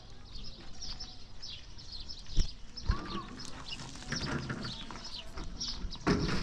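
Small birds chirping over and over, with two sharp knocks a little before halfway.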